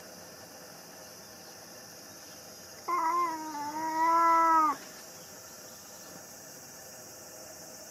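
Orange-and-white stray cat giving one long meow, nearly two seconds, about three seconds in. It is impatient for food that is slow to come.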